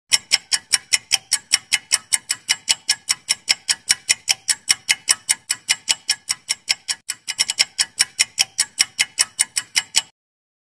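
Clock-ticking sound effect for a quiz countdown timer: fast, even ticks, about five a second, that stop suddenly near the end when the timer reaches ten.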